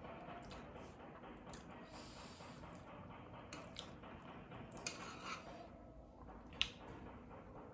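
A person quietly eating Samyang Buldak fire noodles: soft chewing and slurping, with a few sharp clicks, the loudest about six and a half seconds in.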